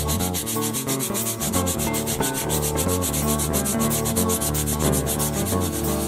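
Sandpaper rubbed by hand over a carved wooden cane handle in quick, even back-and-forth strokes, several a second, with background music underneath.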